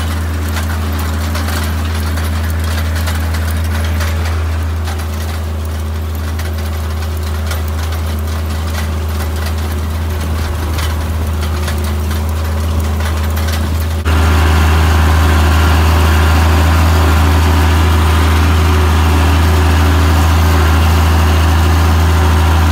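International Harvester 686 tractor engine running steadily while it pulls a hay rake through the field. About two-thirds of the way through, the sound suddenly gets louder and stays that way.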